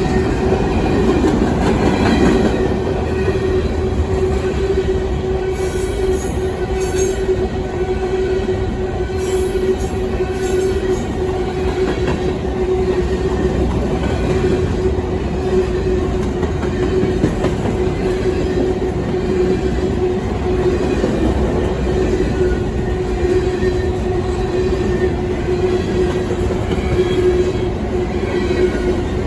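Covered hopper cars of a freight train rolling past close by: steady rolling wheel noise with a continuous squealing tone from the wheels.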